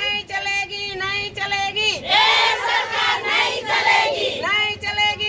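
A group of women chanting protest slogans together, in repeated phrases with held notes.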